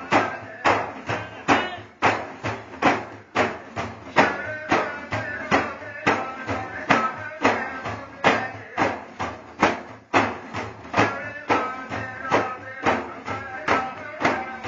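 Frame drums beaten in a steady, even rhythm of a little over two strokes a second, with men's voices singing Kurdish beyit verses over the beat.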